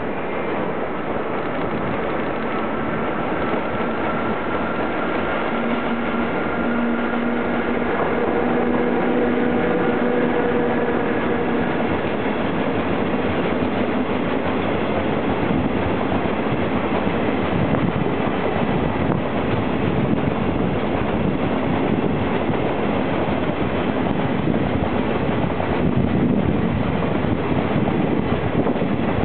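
JR Freight class EF66 electric locomotive hauling a freight train of Hoki hopper wagons rolling past, with steady wheel-and-rail noise. A few steady whining tones sound for several seconds in the first half as the locomotive goes by. The rolling noise grows louder about eight seconds in as the wagons pass close and stays so.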